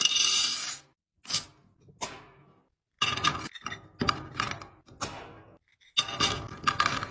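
Containers and kitchen items being handled and set down, with a series of clinks, knocks and clatters: a burst at the start, two single knocks, then a busy run of clattering, a short pause, and more.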